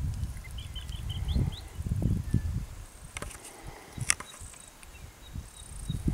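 Outdoor ambience: uneven low rumbling and rustling, with a bird's quick run of short high chirps about a second in and a sharp click about four seconds in.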